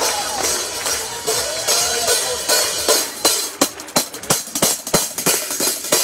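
Live percussion band playing, with drum and cymbal hits. From about halfway through it breaks into a run of sharp, irregularly spaced drum strikes.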